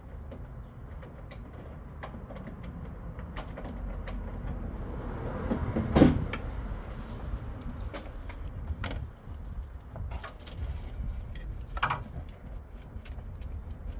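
Scattered clinks and knocks of metal, likely tools and car parts being handled, over a low steady rumble; the loudest knock, briefly ringing, comes about six seconds in, and another near twelve seconds.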